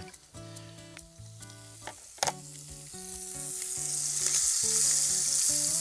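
Duck breasts sizzling in a frying pan, the sizzle building and growing louder through the second half. Soft background music underneath, with a single sharp click a little after two seconds in.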